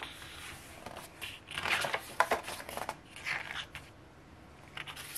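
Hands handling a glossy album photo book: paper sliding and rustling as it is picked up and opened and pages are turned, in a few short spells with small clicks.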